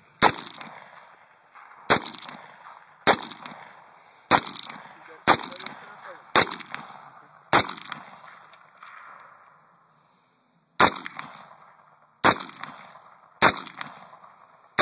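AR-15 rifle fired in single semi-automatic shots, about ten of them at roughly one a second with a pause of about three seconds after the seventh, each shot trailing off in an echo.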